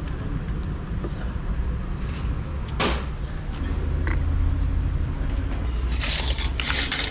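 Steady low rumble of an engine running, with one sharp knock about three seconds in and a short burst of clicking and rattling near the end.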